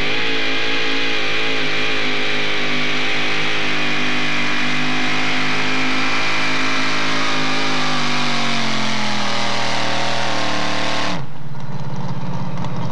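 Modified four-wheel-drive pulling truck's engine held at high revs under full load as it drags the weight-transfer sled, its pitch sagging over the last few seconds. About eleven seconds in the revs are cut off sharply, dropping to a low, rough idle.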